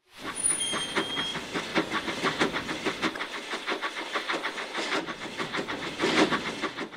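Steam locomotive chuffing at a steady fast rhythm, about six puffs a second, with a hiss of steam; briefly louder near the end.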